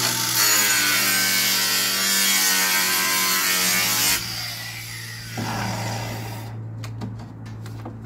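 Angle grinder cutting a notch into cement board, a loud whining, gritty cut, then the disc winds down about four seconds in. A few sharp clicks and knocks follow near the end.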